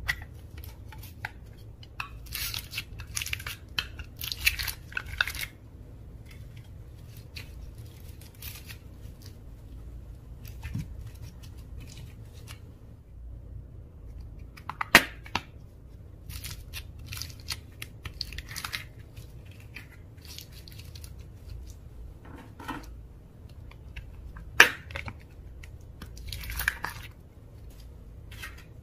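Slime being squished, stretched and folded by hand, making sticky handling noises in irregular bursts. Two sharp pops stand out, one about halfway through and one near the end.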